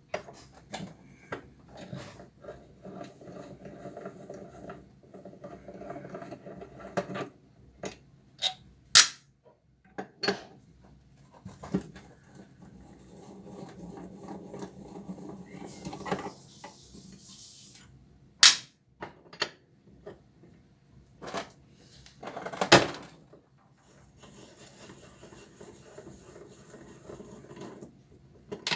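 Hand tools and metal and plastic washing-machine parts clanking and knocking during disassembly, with several loud sharp knocks and stretches of scraping and rubbing between them.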